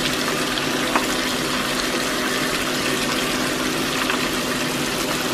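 Tahu walik, tofu stuffed with chicken and starch batter, deep-frying in hot oil: a steady sizzling hiss with one sharp pop about a second in.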